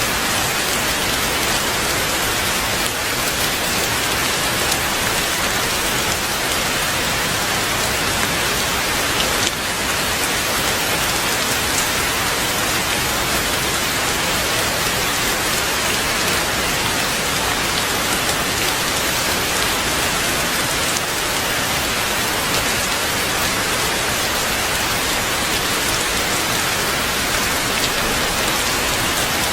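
Heavy, steady rain falling, an even hiss of many drops without a break.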